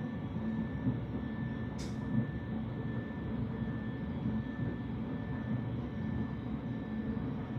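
imes-icore CORiTEC 450i dental milling machine running with a steady low hum and a faint steady high tone, with one short click about two seconds in.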